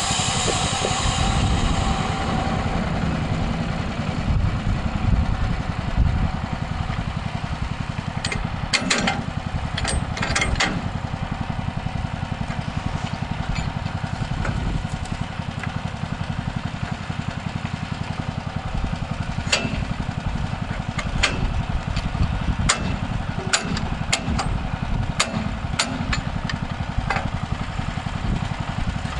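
A band sawmill's 13 HP Honda single-cylinder engine running steadily. A higher hiss fades away in the first couple of seconds. Scattered sharp clicks and knocks come a third of the way in and again through the second half.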